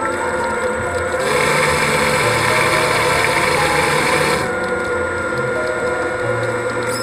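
Brushless thruster motors of a TrenchRover 110 underwater ROV running, heard underwater: a steady mechanical whine with thin high tones. It gets louder from about a second in and drops back a little after about four and a half seconds.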